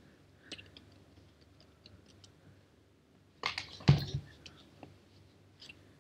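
Keystrokes on a computer keyboard typing a search: scattered light key clicks, with a louder clatter of keys and a thump about three and a half to four seconds in.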